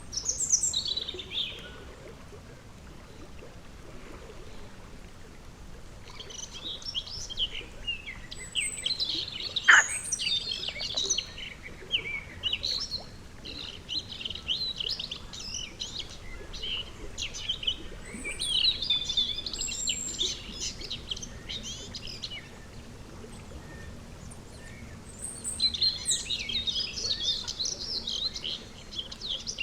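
A songbird singing in bouts of rapid, high chattering notes, each bout a few seconds long with short pauses between, over a faint steady pond background. One sharp click about ten seconds in.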